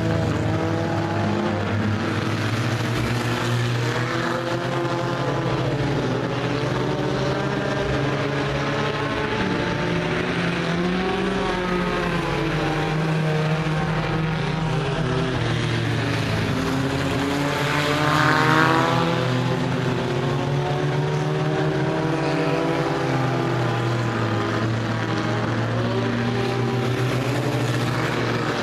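Race cars running laps in a U-Car race on a dirt oval. Several engines are heard at once, each rising and falling in pitch as it passes. One car passes loudest about two-thirds of the way through.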